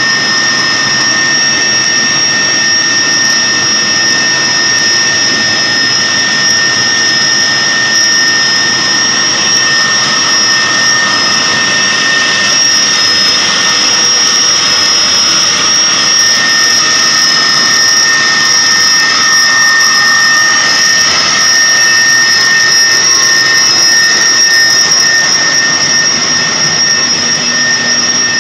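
Food-processing line machinery running: loud, steady machine noise with a constant high-pitched whine on top, unchanging throughout.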